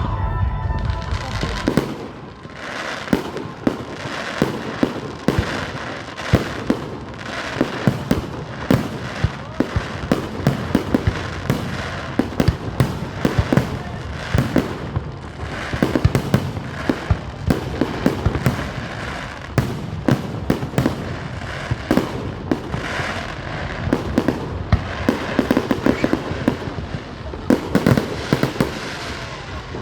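Fireworks display: a rapid, unbroken barrage of sharp bangs and crackling bursts, several a second.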